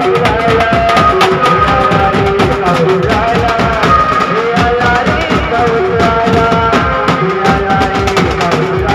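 Live banjo band playing. A melody line slides between notes over steady, dense drumming, with a bass drum among the drums.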